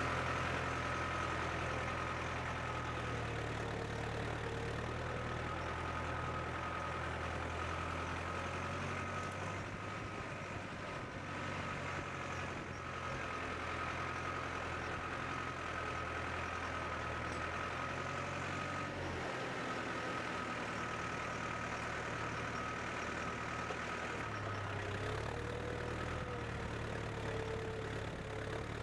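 Case International 885XL tractor's diesel engine running steadily under ploughing load, with a constant high whine over the engine note. The deep engine tone thins out through the middle and comes back strongly near the end.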